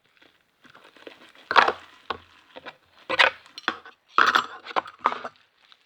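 Slime being worked around a bowl by hand, wiping it clean: a string of short sticky squelches and knocks against the bowl at irregular spacing.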